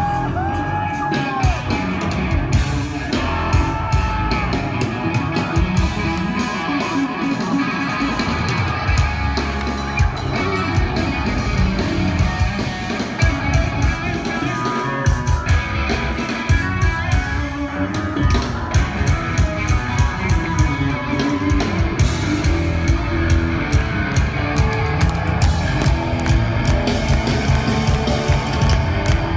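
Hard rock band playing live, with electric bass, electric guitar and a drum kit, loud and continuous.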